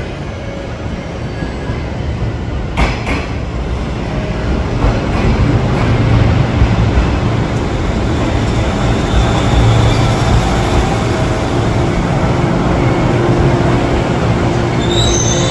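JNR 185 series electric train running into the station platform, a steady rumble of wheels on rails that grows louder as the cars pass close by. A high squeal starts just before the end as the train slows.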